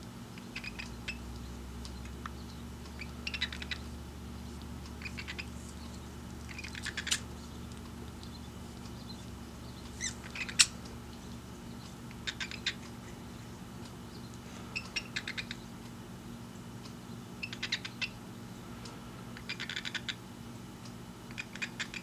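Short runs of rapid, soft beak clicking from a cockatiel and a budgerigar with their heads together, about ten runs coming roughly every two seconds, over a low steady hum.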